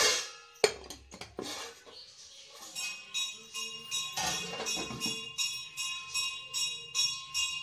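A steel ladle clinks a few times against an aluminium pressure cooker. From about two and a half seconds in, background music with a steady jingling beat takes over.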